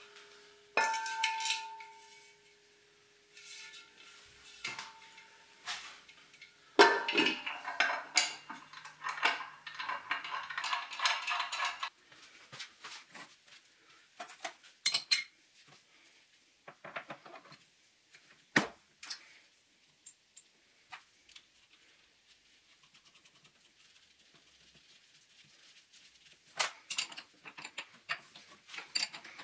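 Metal parts and hand tools clinking and being set down on a steel workbench while a jaw coupling hub is fitted onto a hydraulic gear pump's shaft. One part rings on for the first several seconds, there is a dense patch of clatter a third of the way through, and after that come scattered light taps.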